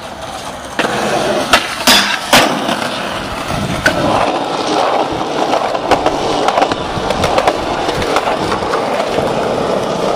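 Skateboard wheels rolling over concrete, a steady rumble throughout. Several sharp clacks of the board come between about one and two and a half seconds in, with lighter clicks after that.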